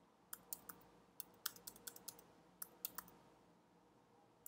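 Faint computer-keyboard typing: a dozen or so scattered keystrokes, which stop about three seconds in.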